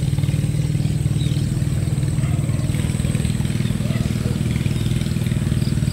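Hand tractor's engine running steadily, with a fast, even firing beat.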